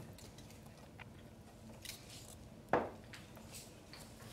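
Quiet room with faint scattered clicks and rustles from people shifting at a table, and one louder short thump nearly three seconds in.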